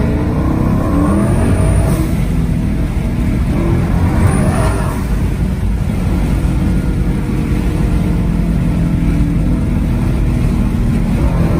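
Hellion twin-turbo 2018 Ford Mustang GT's 5.0 V8 accelerating hard in fourth gear under boost at wastegate pressure, heard from inside the cabin.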